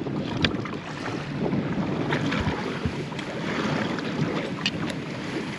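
Wind buffeting the microphone on an open boat, with water slapping against the hull and a few light knocks.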